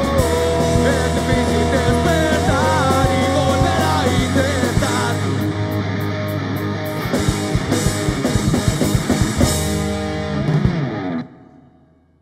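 Live rock band with electric guitar, bass guitar and drums playing the last bars of a song, with hard drum hits in its closing seconds; the band stops together about eleven seconds in.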